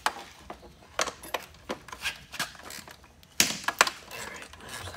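Irregular sharp clicks and knocks of hands and parts being worked on a loose steering column, with the loudest clatter about three and a half seconds in.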